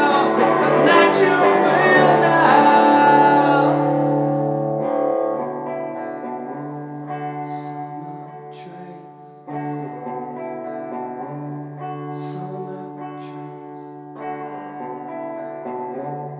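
Solo live rock song on electric guitar with a man singing. It is loud and full for about the first four seconds, then drops to quieter ringing chords that change about every five seconds.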